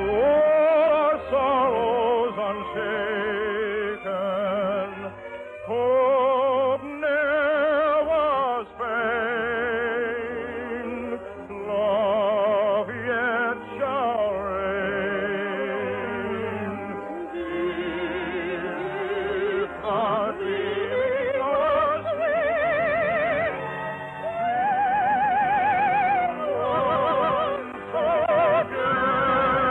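Operatic singing with orchestral accompaniment: long held notes with wide vibrato and gliding phrases. It is heard through a dull, narrow-band old radio recording.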